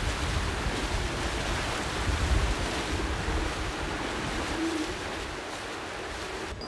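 Water rushing along the hull of a Volvo Ocean 65 racing yacht under sail, with wind buffeting the microphone in a steady hiss and gusty low rumble.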